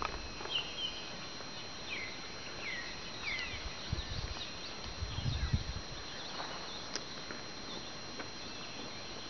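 Birds chirping in woodland: scattered short chirps and quick falling whistled notes, thickest in the first few seconds, over a steady high-pitched tone, with a few low rumbles about halfway through.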